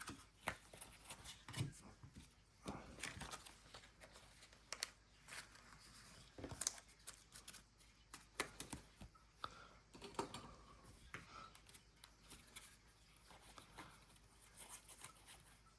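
Faint rustling and light clicks of football trading cards being handled and flipped through, scattered irregularly.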